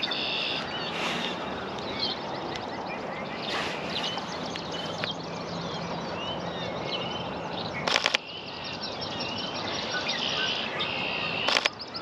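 Many birds chirping and calling, with short slurred notes and a buzzy trill at the start and again near the end, over a steady outdoor hiss. Two quick bursts of rapid sharp clicks stand out as the loudest sounds, about eight seconds in and just before the end.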